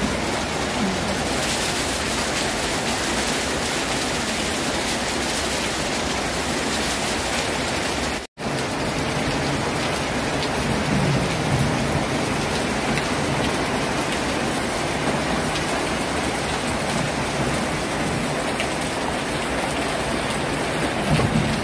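Steady rain falling on leaves and surfaces, with water running off the roof eaves: a dense, even hiss. The sound cuts out for a split second about eight seconds in.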